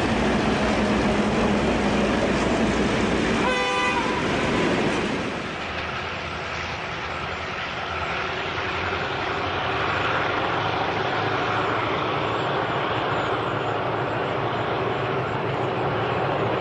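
Oil train of tank wagons rolling past with steady wheel-on-rail noise, and a short horn toot from the T-class diesel locomotives a few seconds in. After that, the train's steady running noise carries on, a little quieter, as the wagons move away.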